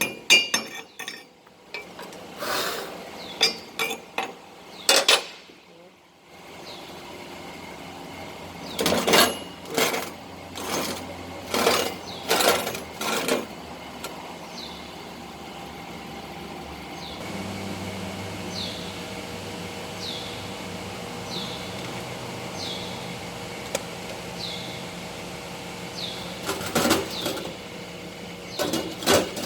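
Sharp metal-on-metal clinks and taps from working a steel pipe and flange, in several bursts, with a steady mechanical hum running between them.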